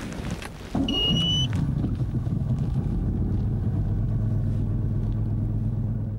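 Bass boat's outboard engine running steadily, rising in level just under a second in and then holding, with a short high beep about a second in.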